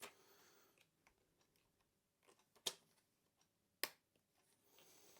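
Two sharp clicks a little over a second apart against near silence: the spring retention clips of a Sony Vaio laptop's RAM slot being pushed aside to release the memory stick.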